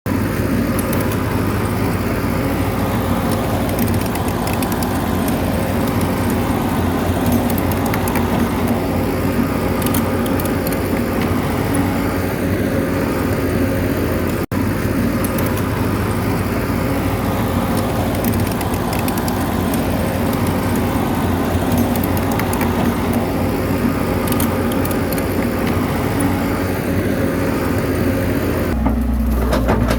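Bulldozer's diesel engine running steadily as it works, with a brief dropout about halfway through and a change in the sound near the end.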